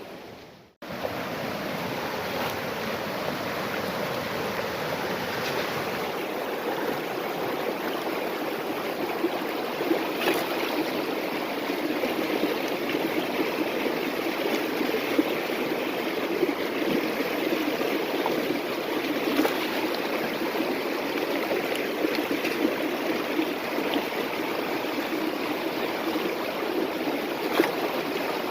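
River water flowing steadily over rocks and around a sluice box, an even rushing sound, with a few faint knocks. The sound cuts out briefly less than a second in, then resumes.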